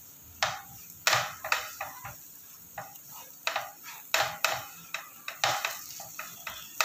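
A spatula stirring and scraping chopped dry fruits mixed with milk and milk powder around a non-stick frying pan, in short irregular strokes about two a second.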